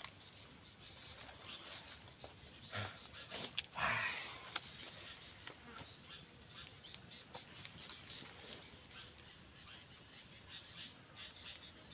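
Steady high-pitched insect chorus, with a few brief noises about three and four seconds in.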